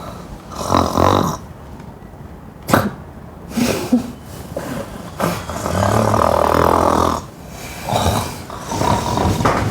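A person snoring loudly and roughly in uneven, rasping breaths, the longest lasting about two seconds midway. A short sharp click comes about three seconds in.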